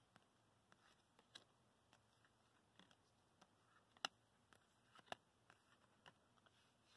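Near silence with faint clicks of baseball cards being flipped through by hand and dropped onto a pile; the clearest come at about one and a half, four and five seconds in.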